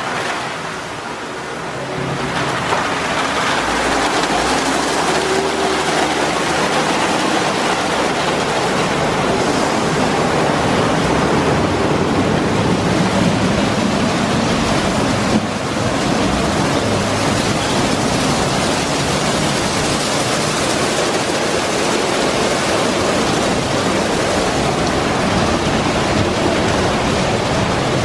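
Ryko SoftGloss MAXX rollover car wash at work: cloth brushes spinning against a car amid spraying water, a steady rushing wash noise that grows louder about two seconds in.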